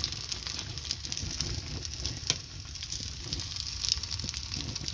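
Quail eggs frying in a cast-iron skillet, sizzling steadily with scattered crackling pops, and one sharper click about two seconds in.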